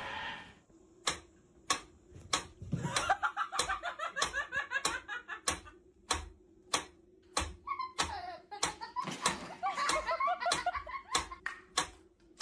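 Mechanical pendulum metronome ticking steadily, about three ticks every two seconds, while a person giggles and laughs through the ticks.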